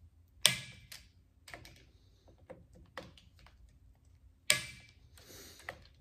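Click-type torque wrench clicking as it reaches its set torque on the scope-ring screws: two sharp clicks about four seconds apart, with lighter ticks and taps of the tool on the screws between.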